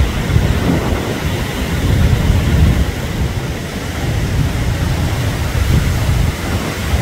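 Hurricane wind gusting and buffeting the microphone: a loud, uneven low rush that swells and eases.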